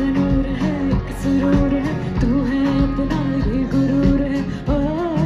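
A song with a singing voice over a band, playing loud and without a break.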